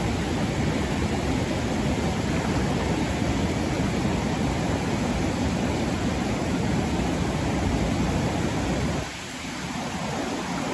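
Steady rush of a rain-swollen river pouring over a small rapid, dropping noticeably in level about nine seconds in.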